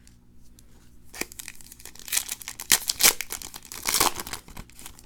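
A 2017-18 Prizm basketball retail card pack being torn open and its wrapper crinkled: a run of rustling tears and crackles that starts about a second in, with the loudest bursts in the middle and again near the end.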